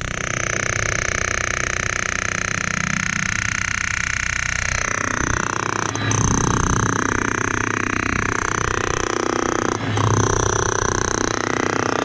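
Loud, steady machine noise that shifts in pitch and texture about five seconds in and again near ten seconds.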